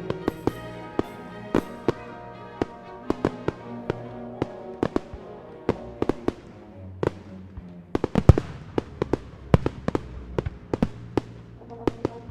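Music with sustained notes, overlaid by firework explosions: many sharp bangs and crackling pops several times a second, with the loudest cluster about two-thirds of the way through.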